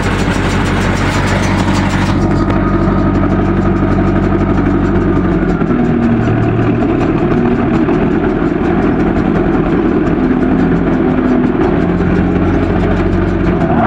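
John Deere farm tractor's diesel engine running steadily as it pulls a heavily loaded straw-bale trailer, its low note shifting about five seconds in.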